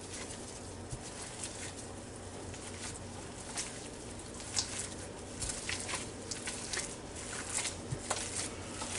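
Gloved hands kneading a ground beef, onion soup mix and mayonnaise mixture in a glass bowl: soft, irregular squishes and pats that come more often in the second half.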